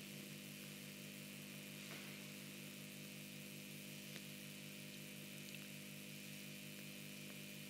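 Quiet room tone: a steady low electrical hum with faint hiss, broken by a couple of faint ticks, about two and four seconds in.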